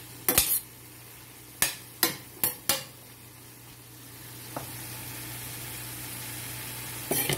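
Kale and onions frying in a stainless steel sauté pan while a utensil stirs them. The utensil knocks against the pan in about five sharp clicks over the first three seconds, then a steady sizzle carries on, with a few more knocks near the end.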